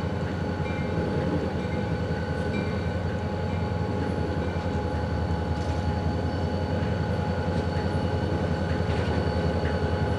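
Diesel locomotives running slowly on the approach, a steady low engine drone with a few steady higher tones, growing slightly louder toward the end.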